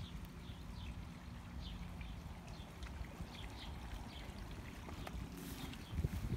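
Small birds chirping, short high falling chirps repeating about every half second to second, over a steady low rush of running water. A few soft thumps come near the end.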